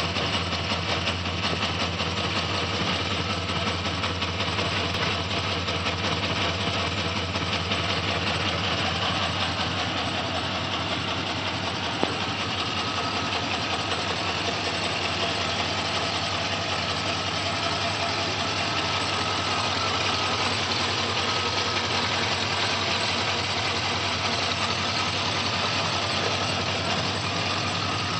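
2004 Chevrolet Silverado's 6.0-litre V8 idling steadily, with a fast, even ticking running through the idle and one sharper click near the middle.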